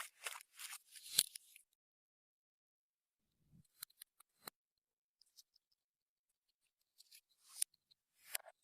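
Clear slime being squeezed and worked by hand, giving clusters of wet crackling and clicking pops: a burst at the start, a few single clicks in the middle, and another burst near the end.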